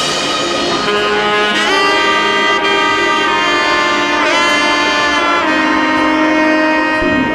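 Background music: a melody on a wind instrument, in long held notes with pitch slides, without drums.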